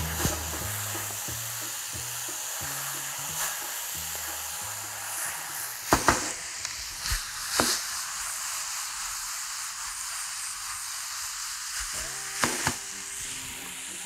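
Chicken and vegetables sizzling as they are stir-fried in a frying pan, a steady hiss of hot oil. There are a few sharp knocks about six, seven and a half and twelve and a half seconds in.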